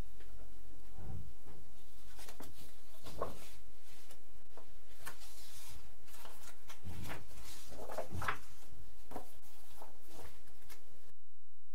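Scattered clicks, knocks and rustling of objects being handled, with a few low thumps, stopping abruptly near the end.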